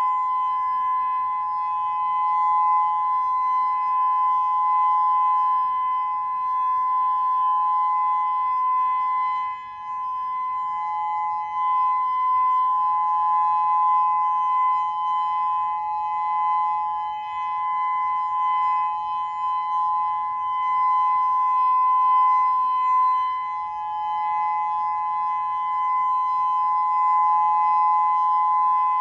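Whelen WPS-2000-16 omnidirectional electronic outdoor warning siren sounding its steady alert signal: two close, high pitches held together as one unbroken tone, wavering slightly in loudness.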